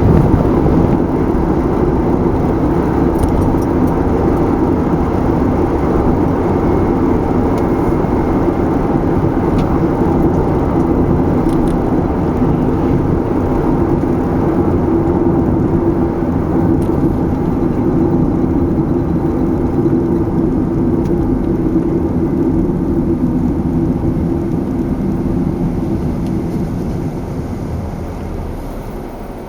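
Car driving at a steady speed: a continuous engine and tyre noise that fades away near the end.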